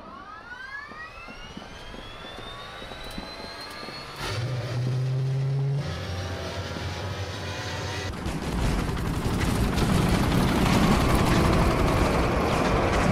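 Gunship jet engines in a sci-fi animation soundtrack: a whine rising in pitch over the first few seconds, a deep steady hum from about four seconds in, then a loud engine rush building from about eight seconds as the craft flies over.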